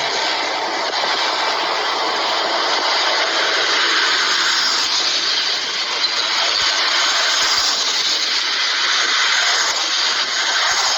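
Steady rushing engine and road noise of a vehicle on the move, with no clear engine note standing out.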